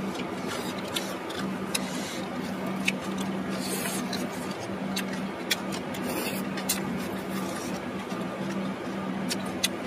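Eating at close range: wooden chopsticks click against cockle shells and the serving tray in scattered sharp clicks, with chewing and a couple of brief slurps about four and six seconds in, over a steady low hum.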